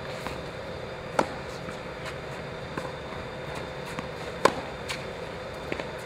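Tennis ball struck by a racket, two sharp hits about three seconds apart, with fainter ball bounces and shoe scuffs between them, over a steady faint hum.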